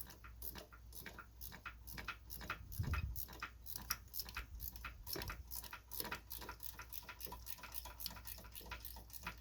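Ratchet wrench clicking rapidly and evenly, about five clicks a second, while a bell housing bolt is run in, with a dull low knock about three seconds in.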